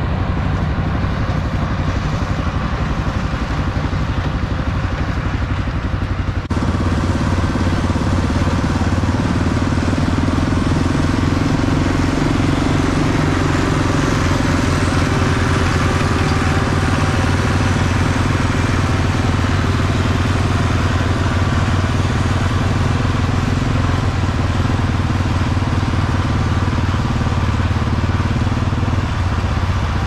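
Allis-Chalmers 200 tractor's diesel engine running steadily under load as it drives a New Idea square baler. About six and a half seconds in, the sound changes abruptly to a fuller, deeper engine note.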